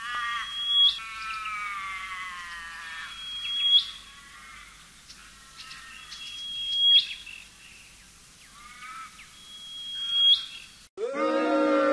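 High whistling tones in a repeating pattern. About every three seconds a held high note ends in a sharp upward sweep, with layered falling glides in between. Near the end it cuts off abruptly and a lower, fuller layered sound takes over.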